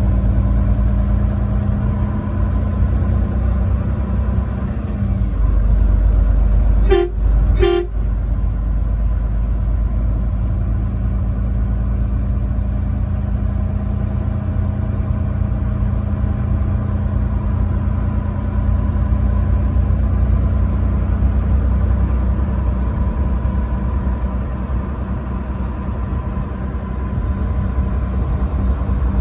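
Truck engine running steadily on the road, with two short blasts of the truck horn about seven seconds in.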